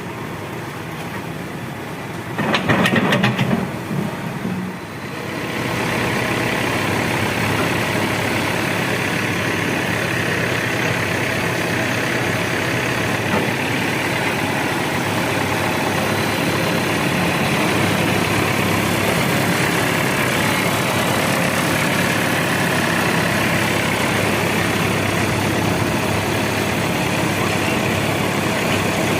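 Diesel engine of heavy earth-moving machinery running steadily, with a short loud clatter of knocks about three seconds in. From about six seconds on the engine runs louder and steady.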